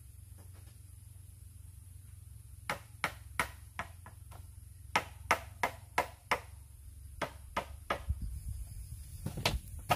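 Pieces of hollow bamboo knocking together as they are fitted into a bamboo wall: a run of sharp, irregular knocks, two or three a second, starting almost three seconds in.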